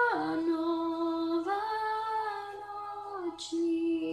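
A young girl singing unaccompanied, drawing out the last line of a Czech Christmas song in long held notes, the middle one higher than the others.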